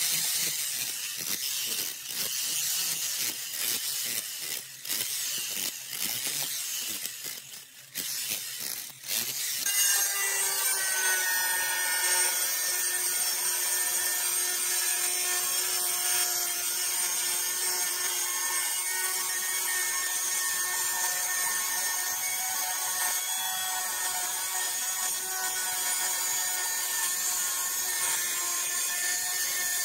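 Electric chipping hammer hammering rapidly as it breaks old tiles and mortar off a concrete wall. It stops about ten seconds in, and an angle grinder then runs with a steady whine as its disc cuts through a ceramic tile.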